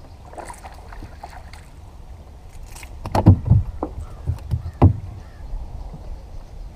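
A few hard thumps and knocks on a small fishing boat's deck and hull while a small bass is landed, a cluster about three seconds in and the loudest near five seconds, over a low rumble of wind on the microphone.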